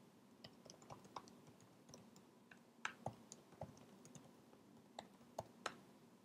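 Faint, irregular keystrokes on a computer keyboard as a terminal command is typed, with a sharper keystroke just before the end as the command is entered.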